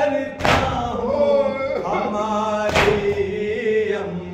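Men chanting a Karbala lament (noha) together in long held lines, with a loud unison chest-beat (matam) falling on the rhythm: two strikes, one about half a second in and one near three seconds.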